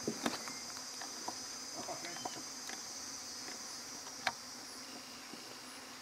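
Insects trilling in a steady, high-pitched chorus, with a few faint clicks, the sharpest about four seconds in.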